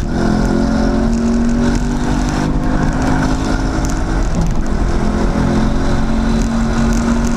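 Camaro SS 1LE's V8 engine running on the straight, heard from inside the cabin, its note holding fairly steady with brief breaks about two and a half and four and a half seconds in, over road and tyre noise.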